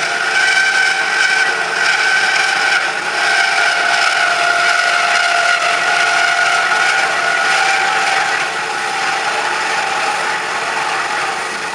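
CORMAK S-280R semi-automatic metal band saw running with its blade cutting metal stock. It makes a steady machine whine with high tones that drift slightly in pitch.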